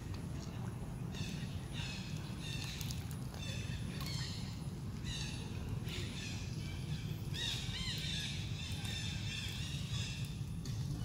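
Repeated high-pitched animal calls, short pitched notes about once a second with a longer, wavering call around the seventh second, over a steady low hum.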